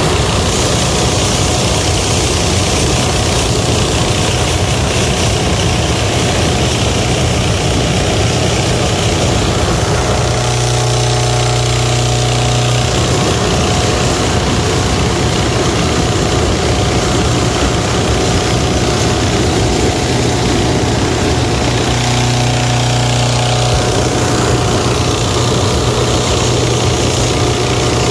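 Hot-air balloon propane burner firing a long continuous blast into the envelope, a steady loud rushing roar. A steady engine hum runs underneath, and twice a deeper buzzing tone joins in for a couple of seconds.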